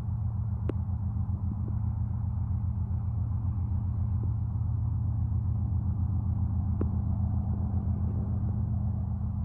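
Diesel engines of Canadian Pacific GE freight locomotives running with a steady, pulsing low rumble, with two faint sharp ticks.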